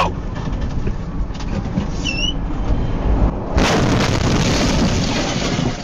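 Rumbling machinery noise, with a brief high squeak about two seconds in and a louder rush of noise starting about three and a half seconds in.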